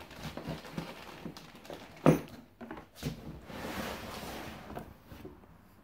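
A chainsaw being unpacked from its cardboard box: cardboard and packing rustling and scraping, with one sharp knock about two seconds in.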